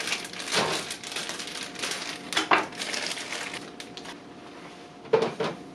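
Plastic meal-kit bags and packets rustling and crinkling as ingredients are unpacked, dying down after about four seconds, then one loud knock near the end.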